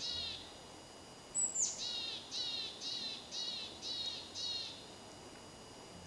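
A small songbird singing: the tail of a phrase right at the start, then a song that opens with a high note about one and a half seconds in and runs into six repeated down-slurred notes, about two a second.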